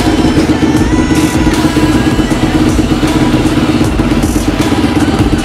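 A 2006 Yamaha YZ450F's single-cylinder four-stroke engine running steadily.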